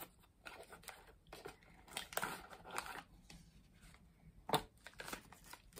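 Small cardboard sunglasses box and its packaging being handled and opened by hand: scattered rustling, crinkling and light taps, with one sharper click about four and a half seconds in.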